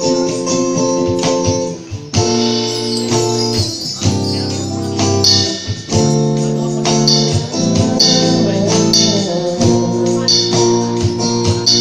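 Live band playing an instrumental passage with no singing: guitar and held chords over conga and cymbal percussion.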